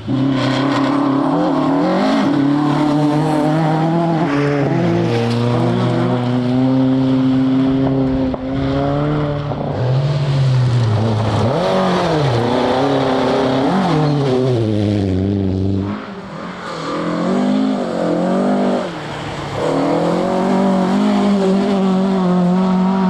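Rally car engines at full throttle on a gravel stage, revs climbing through the gears and dropping sharply on lifts and downshifts. About two-thirds of the way through the sound breaks off and another engine pattern takes over, which could be a different car.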